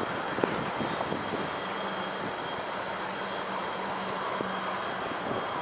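Steady rush of wind and rippling floodwater over a submerged riverside walkway, with a faint low hum in the background from about a second and a half in.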